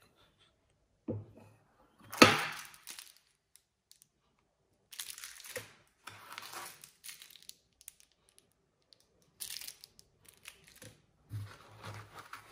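Crinkling and rustling of packaging as small model parts are pulled out of a foam tray, in several bursts, the loudest about two seconds in.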